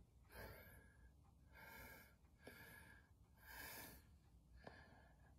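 Near silence, with a few faint breaths close to the phone's microphone, about three in all.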